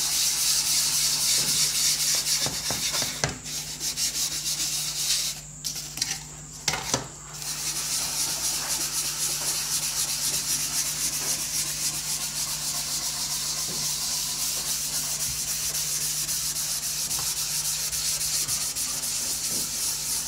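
A shellac-charged french polishing rubber scrubs pumice powder across a veneered wood panel in fast circular strokes, making a steady gritty rubbing. The pumice on the rubber's face acts as an abrasive, grinding wood dust and shellac into the grain to fill it. The rubbing stops for a couple of seconds about a quarter of the way in, with a few light knocks, then carries on.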